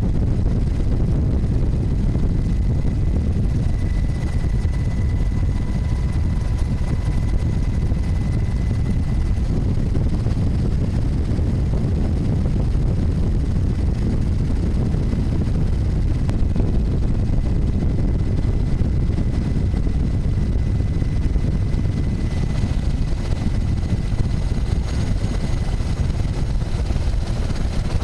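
Helicopter rotor and engine noise: a loud, steady rumble heaviest in the low end, with a faint steady whine above it.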